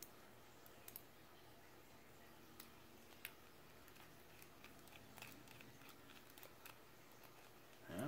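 Near silence with faint, scattered small clicks: a precision screwdriver bit working small screws into a balisong's handle, metal parts ticking as they are handled.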